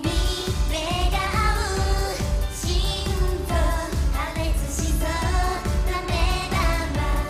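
Live J-pop idol song: a young woman sings lead into a handheld microphone over an upbeat pop backing track with a steady beat.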